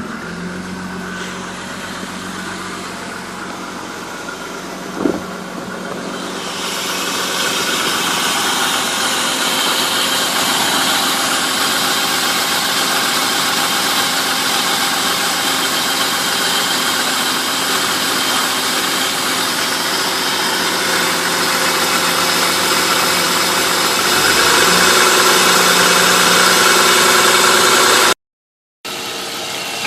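1995 BMW 325is's M50 straight-six idling warm, with the rattle it makes below about 1000 rpm once hot, a chatter like teeth chattering that the owner wonders is the VANOS unit. The sound grows louder and brighter about seven seconds in, and cuts out briefly near the end.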